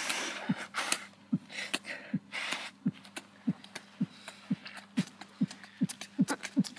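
A person blowing and sniffing their nose into a paper tissue in several short noisy blasts over the first two seconds or so. Under it and after it, a regular series of short knocks comes about twice a second.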